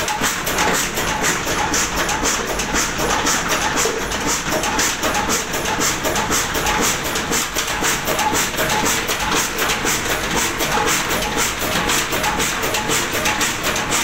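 30 hp Ruston Hornsby stationary diesel engine running at a steady speed, with an even, rapid mechanical beat as its flywheel and belt pulley turn.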